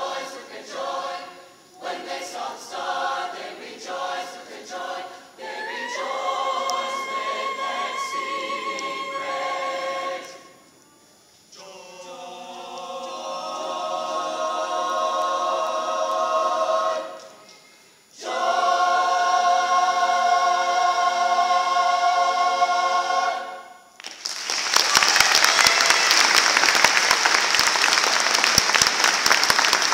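Mixed choir singing in harmony: short, detached chords, then held chords broken by brief pauses, ending on a long final chord that cuts off about 24 seconds in. Audience applause follows to the end.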